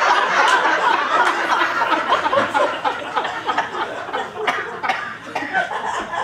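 Theatre audience laughing, loudest at first and dying down over the last few seconds.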